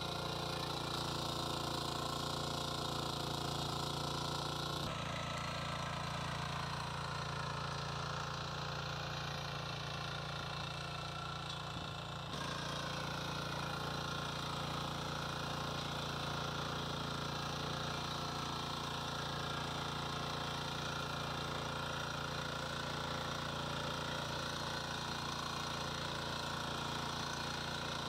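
Shrachi power weeder's engine running steadily under load as its rotary tines till soil between crop rows.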